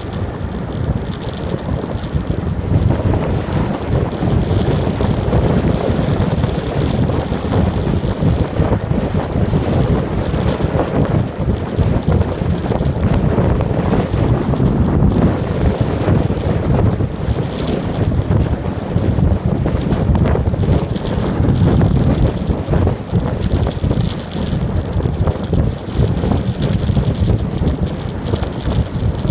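Wind buffeting the microphone of a phone carried on a moving bicycle, a steady low rumble with road and tyre noise underneath.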